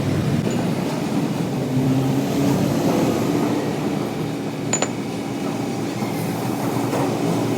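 Steady machinery hum, with one sharp metallic clink almost five seconds in.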